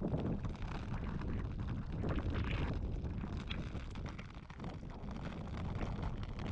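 Wind buffeting the microphone: a rough, gusting low rumble that swells and eases.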